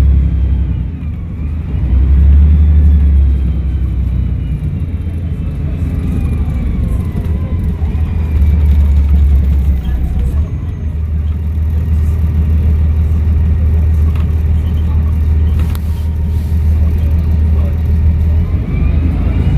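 Volvo B7RLE bus engine running under changing load, its low rumble swelling and easing several times as the bus pulls away and slows. A faint turbo whistle glides down and back up over it.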